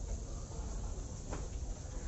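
Outdoor cattle-market background noise: a steady low rumble with an even hiss, and one brief sharp sound about a second and a half in.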